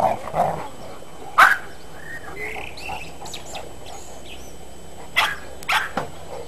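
Dogs barking in play: a few short sharp barks, the loudest about a second and a half in and two more close together near the end.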